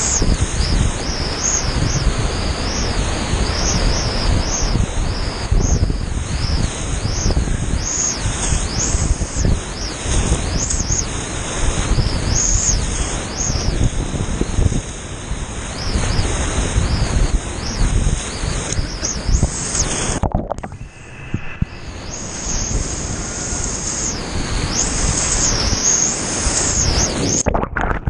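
Whitewater rapid rushing loud and close around a kayak, buffeting the microphone. About twenty seconds in the roar cuts to a dull muffle for a second or so, and it does so again at the very end as the camera goes underwater.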